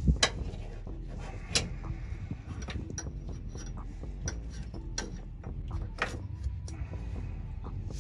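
Irregular small clicks and knocks of hands handling a fuel filter and its metal fuel-line fittings, fitting them into place, over a low steady background hum.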